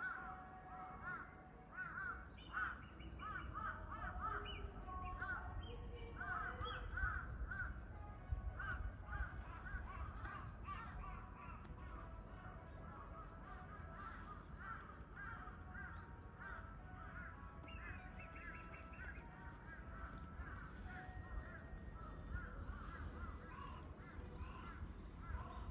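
Crows cawing in repeated short runs of calls, with a low rumble underneath.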